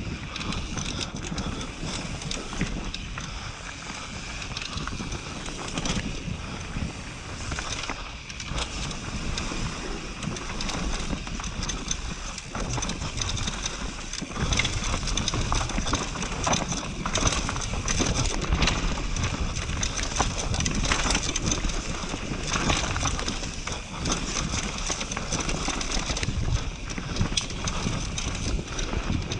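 Mountain bike descending a dry dirt singletrack: tyres running over loose dirt and stones, with the bike rattling and knocking over bumps and wind noise on the microphone. It gets rougher and louder from about halfway, over a rocky stretch.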